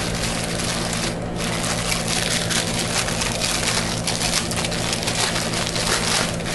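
Packaging being worked open by hand, crinkling and crackling continuously.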